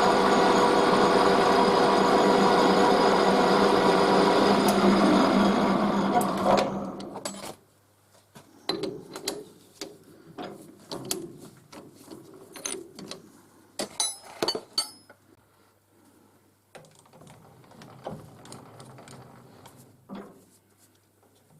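A workshop machine tool running steadily under power, then winding down and stopping about seven seconds in. Sharp metallic clicks and knocks of tool and part handling follow.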